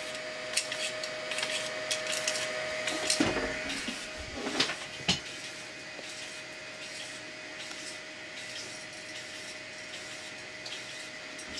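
3D printer extruder stepper motor running a rapid back-and-forth filament retraction test: a steady electrical whine with regular ticks. A few louder knocks come between about three and five seconds in, while the whine briefly drops out.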